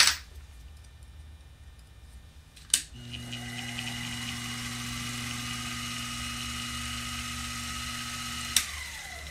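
Small variable-speed lathe motor starting with a click about three seconds in, spinning an oboe key rod in its chuck with a steady hum and a whine that rises as it comes up to speed. Near the end a click stops it and it winds down in a falling tone.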